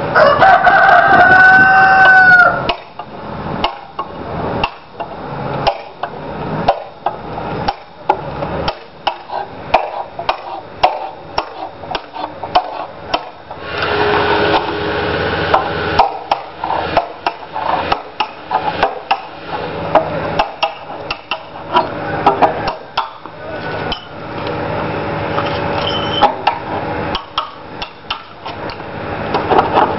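Hand-dressing the edge of a large Westmorland green roofing slate: a run of sharp chopping knocks from the dressing tool, about one and a half a second at first and then quicker and lighter. A loud drawn-out call, rising then falling, sounds over the first two seconds.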